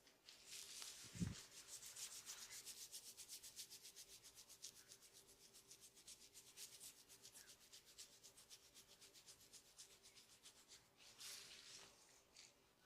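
Hands rubbing quickly back and forth over hair and scalp during a head massage: faint, fast, even scratchy strokes, about seven a second. A soft thump comes about a second in.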